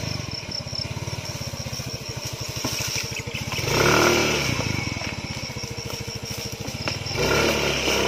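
Motor scooter engine running at idle, with the revs rising briefly about four seconds in and again near the end as the scooter is turned around.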